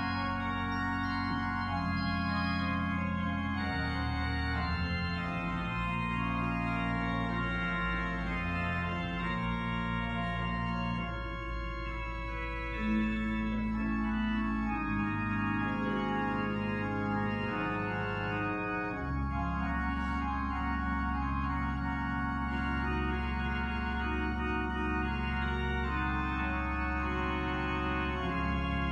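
Church organ playing slow, held chords that change every few seconds over deep sustained bass notes.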